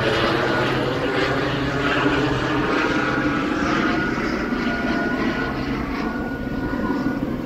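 Police helicopter circling overhead, its rotor beating steadily, easing slightly toward the end.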